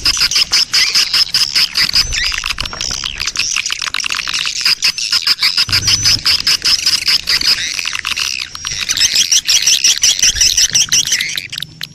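A dense colony of swiftlets (walet) chirping and twittering continuously, with rapid clicking calls mixed in: a swiftlet lure recording of a breeding colony, played to call swiftlets into a nesting house. It fades out at the very end.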